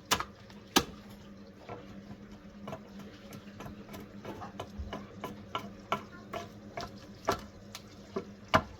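Irregular sharp clicks and taps, one or two a second, loudest near the start and near the end, over a faint steady hum.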